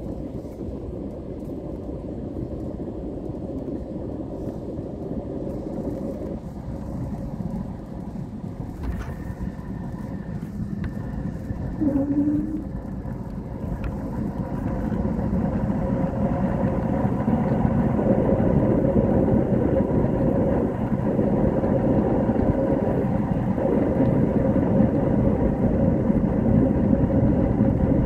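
Jet airliner cabin noise on landing: steady engine and airflow noise, a short sharp knock about nine seconds in as the wheels touch down, then a louder, steady roar from about fifteen seconds in, as on reverse thrust during the rollout.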